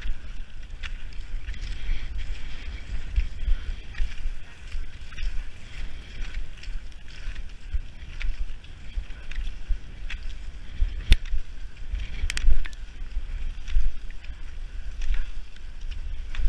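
Skate skis hissing as they slide over packed snow, with sharp ski-pole plants clicking about once a second, over a low wind rumble on the microphone.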